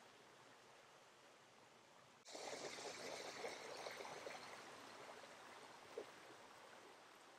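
Faint river water running over shallow rocks, a steady rushing wash that becomes suddenly louder a little over two seconds in. A single short knock about six seconds in.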